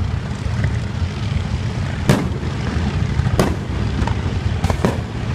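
Fireworks going off: a dense, continuous low booming with sharp bangs about two seconds in, again a second later, and twice in quick succession near the end.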